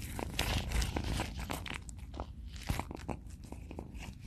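A cat chewing and biting on a piece of food, with irregular crunching crackles.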